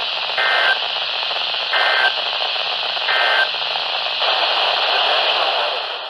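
Midland emergency weather radio sending the NOAA Weather Radio end-of-message signal after a severe thunderstorm warning: three short bursts of two-tone data warble, about a second and a half apart, over steady static hiss. The broadcast audio cuts off suddenly at the very end.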